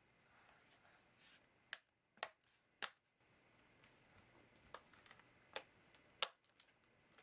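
Handling of a laptop: about seven short, sharp clicks and taps at irregular intervals, the loudest about six seconds in, over faint room tone.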